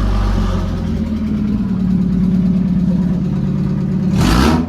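Car engine running loud with its exhaust straight out the headers and no catalytic converter, idling steadily, then revved once about four seconds in, the pitch rising and falling back.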